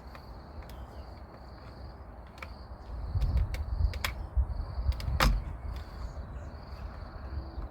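Clicks and knocks of a flathead screwdriver working in the release hole behind a BMW M2 steering wheel, pushing against the driver airbag's retaining spring. The sharpest clicks and handling bumps fall about three to five and a half seconds in.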